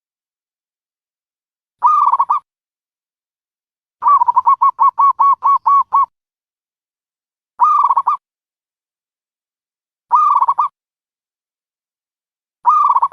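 A dove cooing: short coos repeated about every two and a half seconds, with one longer run of about ten quick coos near the middle.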